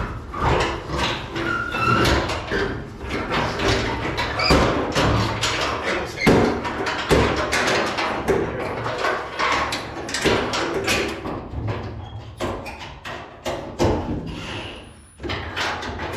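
Hands-on installation work on a gas tank mount: a dense run of irregular knocks, clatters and squeaks of parts being handled and fitted, with a brief lull near the end.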